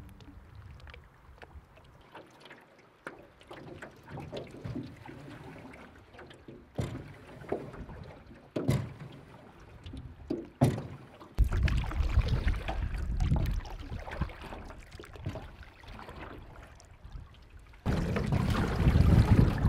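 Paddling a small metal rowboat: water splashing with the strokes, and a few sharp knocks. About halfway in, wind starts buffeting the microphone with a heavy low rumble, louder still near the end.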